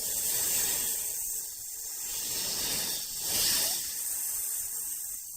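Snake hissing: a continuous hiss that swells twice, loudest about three and a half seconds in.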